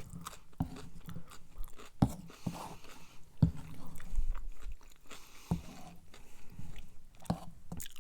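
Close-miked chewing of sloppy joe casserole, with wet mouth sounds and sharp clicks at irregular intervals, about one a second.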